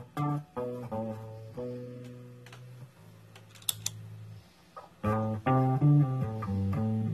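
Guitar played through a DOD Performer Wah Filter 545 pedal: picked single notes and short phrases, with a held note that fades, then a louder run of picked notes from about five seconds in.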